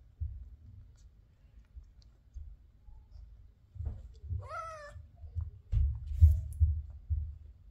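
A single short cat meow, rising then falling in pitch, about halfway through, over irregular low, muffled thumps and knocks that are loudest near the end.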